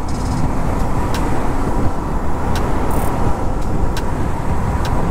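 Motorcycle riding at road speed: a steady rush of wind over the microphone with the engine running underneath.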